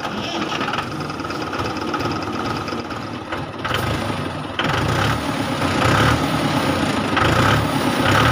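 Tractor engine running with a steady chug, getting a little louder about halfway through.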